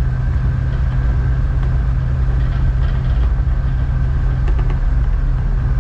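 Tugboat diesel engines running steadily under heavy load while backing hard astern with a barge: a continuous low drone with a faint steady whine above it.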